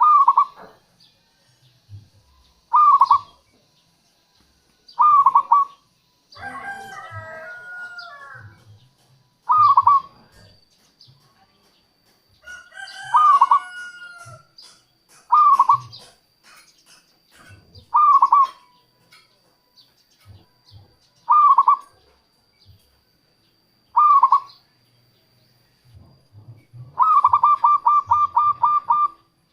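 Zebra dove (perkutut) cooing: short calls repeated about every two and a half seconds, with a quick run of about ten notes near the end. Twice a longer, more complex call from another bird cuts in.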